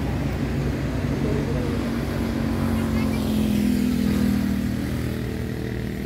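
Motorcycle engine running on the road, its note swelling and rising slightly in the middle before easing off.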